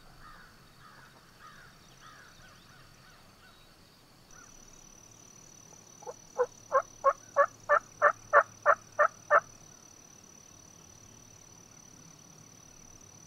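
A turkey yelping: a run of about eleven evenly spaced, loud yelps, roughly three a second, lasting a little over three seconds and starting about six seconds in.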